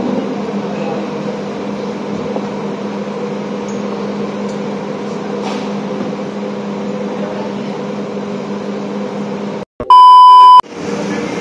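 Steady background hum and noise, cut off by a brief dropout, then a loud, steady test-tone beep of under a second as a TV colour-bars transition effect.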